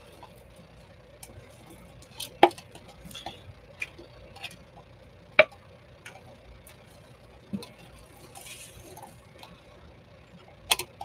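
Scattered clicks and knocks of cups and bottles being handled and set down on a work table while resin is measured out, the two sharpest knocks about two and a half and five and a half seconds in.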